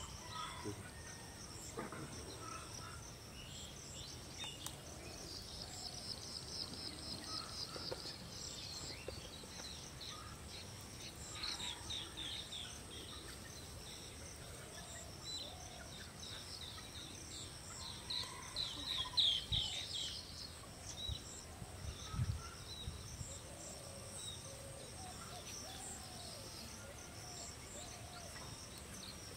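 Rural pondside ambience: small birds chirping and trilling in quick runs of high notes, loudest about two-thirds of the way through, over a steady high hum of insects.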